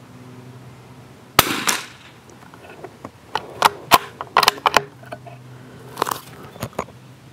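A single shot from a CZ Brno Model 4 bolt-action .22 rimfire rifle about a second and a half in, with a short ringing tail. Then a run of sharp metallic clicks as the bolt is worked, and a few more clicks near the end.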